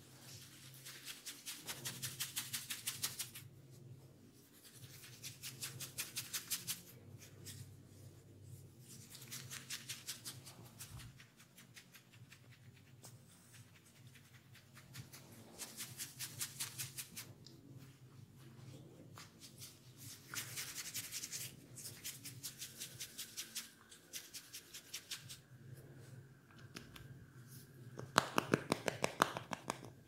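Fingers rubbing fast over a woman's ear and the hair beside it, close to the microphone: a scratchy, rhythmic rubbing that comes in several bursts of two or three seconds, the loudest near the end.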